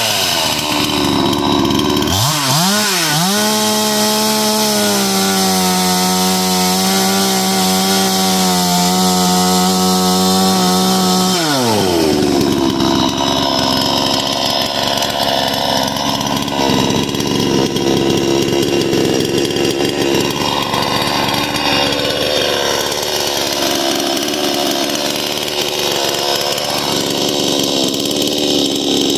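A 20-inch two-stroke gas chainsaw is blipped twice, then held at a steady high-pitched full-throttle whine. About twelve seconds in its pitch drops to a lower, rougher, wavering note under load as it cuts into wood.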